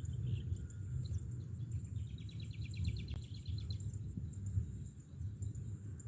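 Rural outdoor ambience: a bird gives a rapid, even trill for about two seconds, starting about two seconds in, over a steady high insect buzz and a low rumble.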